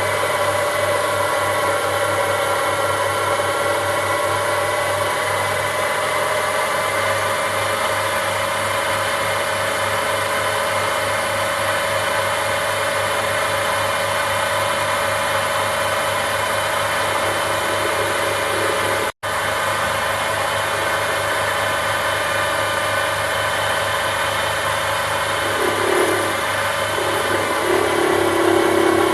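Sherline micro lathe running steadily, its motor and spindle giving a constant whine with several held tones. It cuts out for an instant about two-thirds of the way through, and a new, lower steady tone joins near the end.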